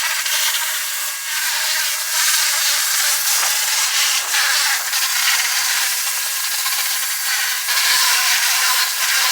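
A power tool abrading a surface: a steady, loud rasping hiss that wavers slightly as pressure changes.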